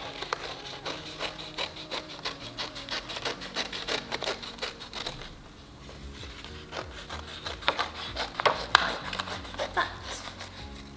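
Scissors snipping through folded card in quick repeated cuts, with the card rustling as it is turned. There is a brief lull in the middle and a few louder snips near the end.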